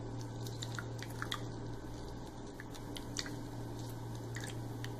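Quiet room tone: a steady low hum with scattered faint small clicks.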